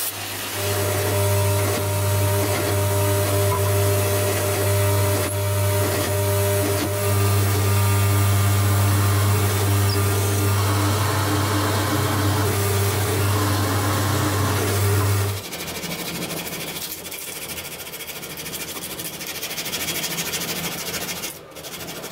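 Electric drill press motor running with a steady hum while a spade bit bores into a wooden block. The hum stops suddenly about fifteen seconds in, followed by a quieter rubbing of sandpaper on the wooden handle.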